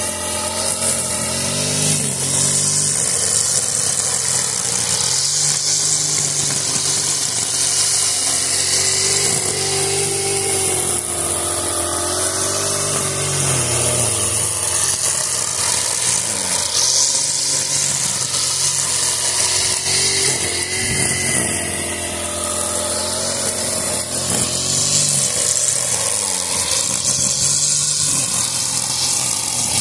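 Honda four-stroke petrol brushcutter running with a nylon line head cutting grass: the engine note rises and dips repeatedly as it cuts, over a constant high hiss of the line whipping through the grass.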